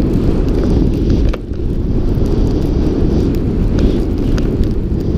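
Wind buffeting the microphone of a helmet-mounted camera as a snowboarder rides downhill: a loud, steady low rumble with scattered faint ticks. It dips briefly about one and a half seconds in.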